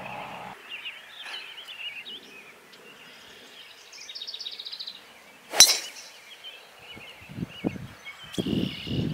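One sharp, loud crack of a golf club striking a ball, about halfway through, over birds chirping in quick trills. A low hum cuts off about half a second in.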